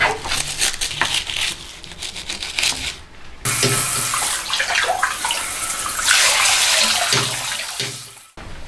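Water running hard from a tap for about five seconds, then shut off abruptly, after a few seconds of light clattering and splashing.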